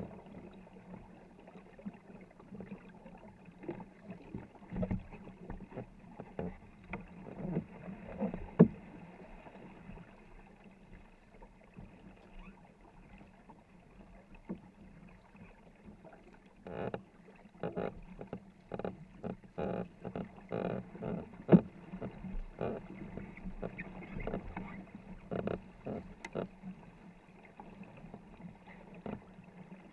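Paddles of a 24-foot war canoe's crew dipping and pulling through the water in quick repeated strokes, with splashing and knocks against the hull, busier in the second half and with two sharp knocks, one about a third of the way in and one past the middle.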